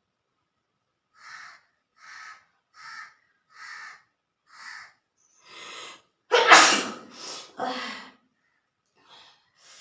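A woman sneezes once, with a sudden loud burst about six seconds in, forced by tickling her nose with a blade of grass. It is preceded by a run of six short breathy breaths as the sneeze builds, and followed by two weaker bursts of breath.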